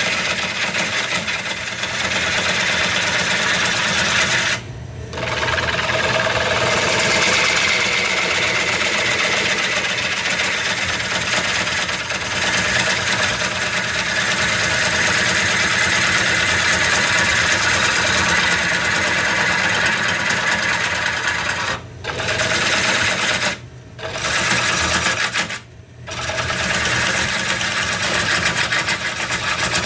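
Bowl gouge cutting the outside of a spinning bowl blank on a wood lathe during rough turning, a continuous rough cutting noise. It breaks off briefly where the tool leaves the wood: once about five seconds in, then three times close together a few seconds before the end.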